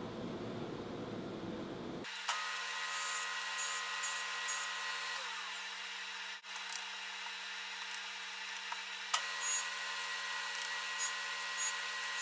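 Table saw running with a steady whine while a small wooden block is fed along the fence through the blade, roughing out the block's squared bottom. The louder, rougher cutting comes in bursts, about two seconds in and again from about nine seconds.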